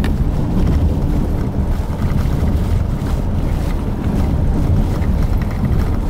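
Steady low rumble of road and wind noise inside a car driving at highway speed.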